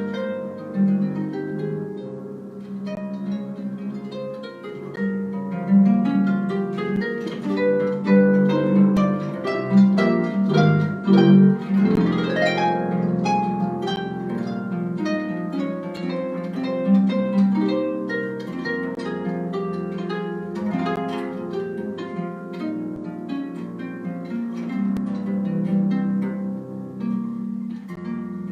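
Live harp jazz: a harp playing a stream of plucked notes and chords, with a quick upward sweep of notes about twelve seconds in.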